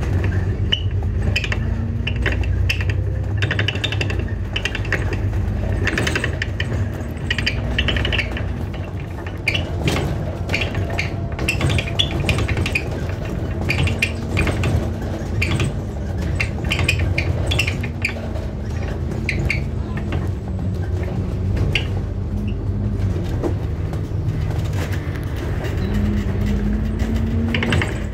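Inside an ADL Enviro400 MMC double-decker bus on the move: a steady low engine and road drone, with frequent light rattles and clicks throughout. The engine note rises near the end.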